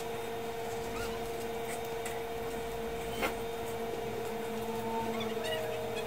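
Steady mid-pitched electrical hum from the repair bench's equipment, with a single sharp click about three seconds in.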